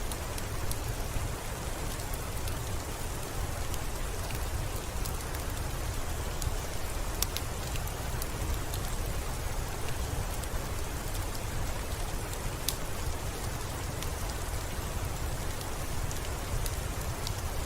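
Steady rain with a low rumble underneath and scattered sharp crackles from a wood fire, a few of them louder than the rest.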